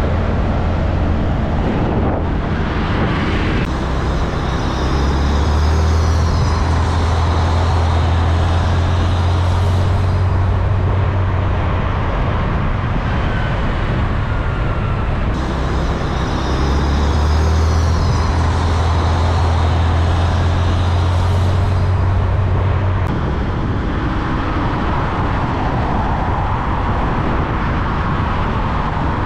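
Heavy diesel semi-trucks passing close by: engine rumble and tyre noise from container trucks and a tanker semi-trailer. A loud low drone swells twice, about four seconds in and again about sixteen seconds in, each time lasting about seven seconds.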